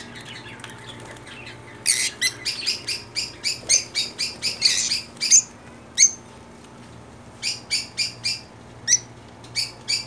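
Small caged parrots, lovebirds and budgerigars, giving short, shrill chirps in quick runs, starting about two seconds in and breaking off for a moment past the middle before starting again.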